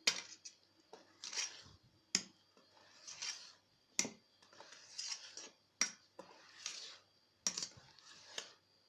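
Wire balloon whisk stirring cake batter in a stainless steel bowl: wet swishes through the batter alternating with sharp clinks of the wires against the bowl, about one stroke a second.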